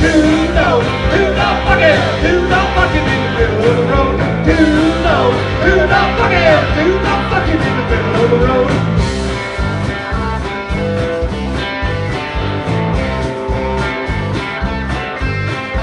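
Live rock band with bass and electric guitars playing an instrumental break between sung verses. A lead line bends up and down in pitch through the first nine seconds or so, then the playing settles into steadier held notes over the beat.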